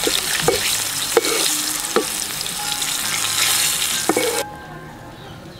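Food frying in hot oil in a pan, sizzling steadily, with a few sharp knocks of a stirring utensil against the pan. The sizzle stops suddenly about four seconds in.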